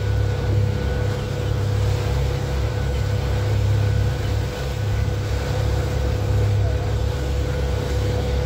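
Motorboat engine running steadily under way: a low drone with a thin steady whine above it, over the rush of water and wind.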